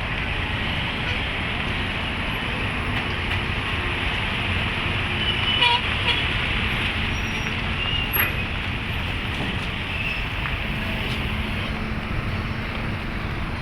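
Heavy construction machinery running: a steady diesel engine drone with a low hum, broken by a few brief clanks and squeaks around the middle.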